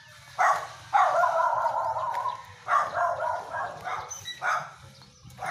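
A dog calling out repeatedly: a short call, then a drawn-out one lasting over a second, then several shorter calls.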